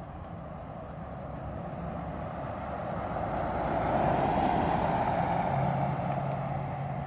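A motor vehicle driving past, growing louder to a peak about four seconds in and then fading away, over a low steady engine hum.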